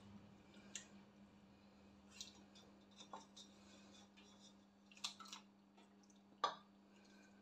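Faint, scattered taps and clicks of wooden spoons against a stainless steel cooking pot as a whole boiled chicken is lifted out of the broth, over a low steady hum.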